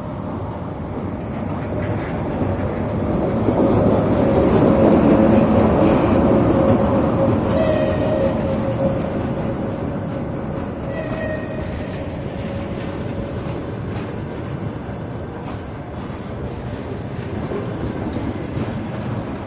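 EP1M electric locomotive and its passenger carriages rolling in: a steady rumble of wheels on rail with a constant whine, loudest about four to six seconds in. Two short squeals come around eight and eleven seconds in, and wheels click over the rail joints in the second half.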